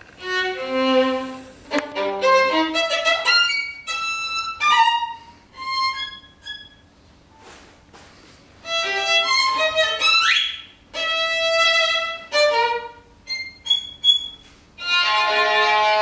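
Solo violin playing short phrases of bowed notes broken by pauses. About ten seconds in it makes a quick upward glide, then plays a few short high notes before a fuller, sustained passage near the end.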